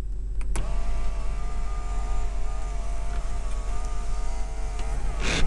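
An electric power-accessory motor in a 1998 Mazda MPV whines steadily for about four seconds, starting after a click and ending in a clunk near the end. The low hum of the idling engine runs underneath.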